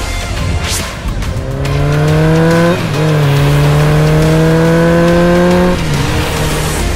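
Sportbike engine accelerating hard: its pitch climbs, drops briefly at a gear shift nearly three seconds in, climbs again and cuts off about six seconds in. A whoosh sounds near the start, with background music underneath.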